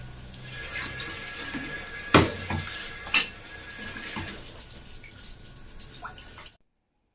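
Washing dishes in a stainless steel sink: tap water running while ceramic plates are scrubbed and handled, with clinks and knocks of crockery against the sink, the two loudest about two and three seconds in. The sound cuts off suddenly near the end.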